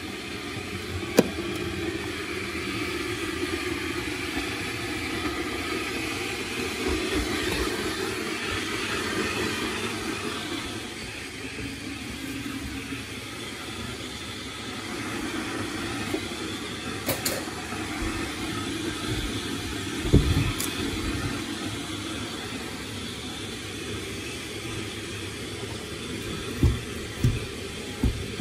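Electric kettle heating water, a steady rushing rumble throughout. A sharp click about a second in and a few knocks later on come from the cleaning.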